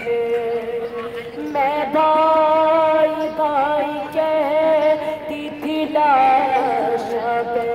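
A woman singing a noha, a Shia mourning lament, into a handheld microphone, with long held notes that waver and bend in pitch.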